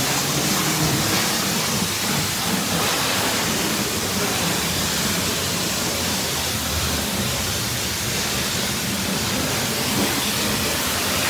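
High-pressure wand at a coin-operated self-service car wash spraying water onto a car's body and the wet floor, making a steady hiss that holds at one level throughout.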